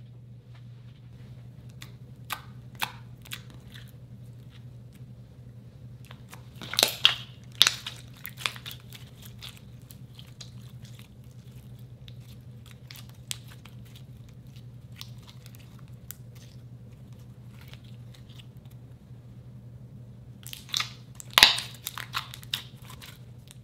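Glossy slime being stretched and squeezed by hand, making scattered sticky clicks and pops, with two denser bursts of crackling about seven seconds in and again near the end, over a steady low hum.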